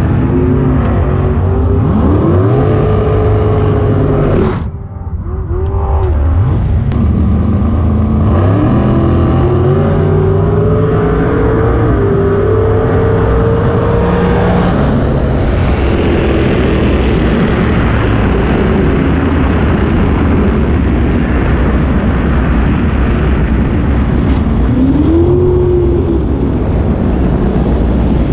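Dragster engine at full throttle, heard from an onboard camera on the car. Its note climbs over the first few seconds, dips briefly just before five seconds in, then climbs again and holds high.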